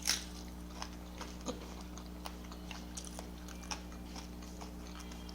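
A person chewing a crunchy mouthful of food close to the microphone: a crunch at the start of the bite, then faint scattered chewing clicks, over a steady low electrical hum.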